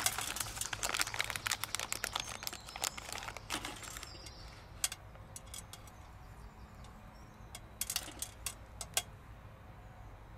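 Foil-lined bait packet crinkling as it is handled and opened, dense crackling for about four seconds, then only a few scattered crinkles later on.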